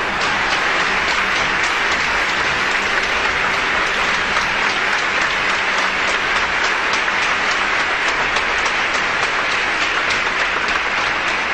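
A large audience applauding steadily in a hall, the dense clapping keeping an even level throughout.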